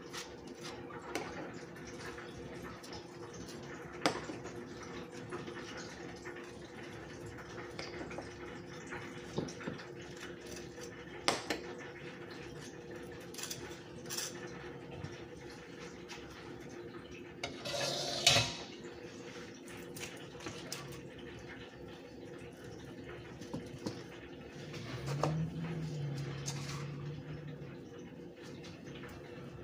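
Scattered clinks and taps of utensils and food against a ceramic plate as a sandwich is put together, over a steady background hum. A louder rustling scrape comes a little past halfway, and a short low hum a few seconds before the end.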